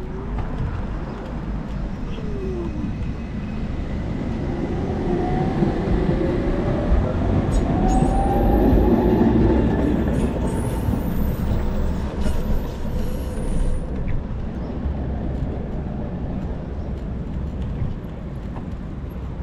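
Electric tram passing close by, its motor whine gliding up and down in pitch and loudest about eight to ten seconds in, with thin high-pitched tones from about seven to fourteen seconds in. A low rumble of wind on the microphone underlies it.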